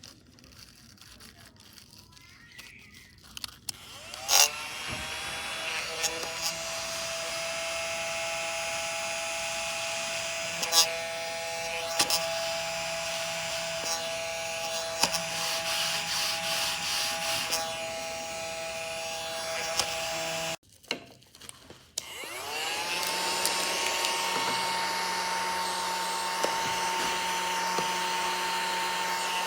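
Battery-powered mini desk vacuum clicked on about four seconds in, its small motor running with a steady whine. It cuts off suddenly about two-thirds of the way through, then starts again about a second and a half later, spinning up to a steady, higher-pitched whine.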